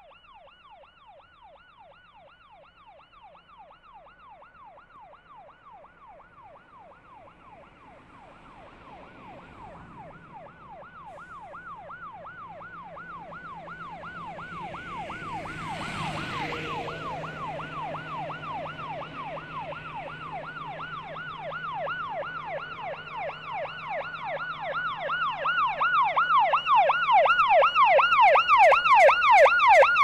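Police car siren on a rapid yelp, its pitch sweeping quickly up and down over and over, growing steadily louder as it approaches from a distance. A low, steady engine hum comes in about a third of the way through, with a short rush of noise around the middle.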